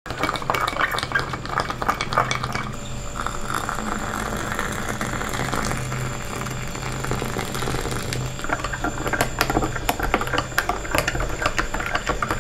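A metal spoon beating and stirring coffee in a glass cup, with rapid clinks against the glass. The clinking eases off for a few seconds in the middle while milk is poured in, then picks up again near the end.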